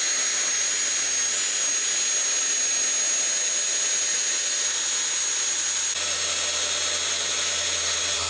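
Electric woodworking power tool running steadily under power: an even rushing noise with a constant high motor whine, its tone shifting slightly about six seconds in.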